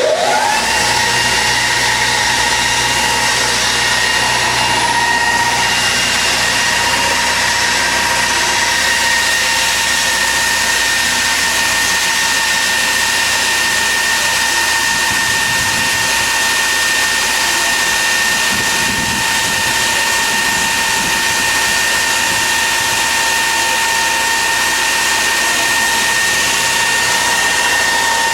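Neo-Mac MT1855 automatic pipe grinding and polishing machine with four abrasive belts running: a steady high whine over a constant hiss. The whine rises and settles at its pitch within the first second as the motors come up to speed.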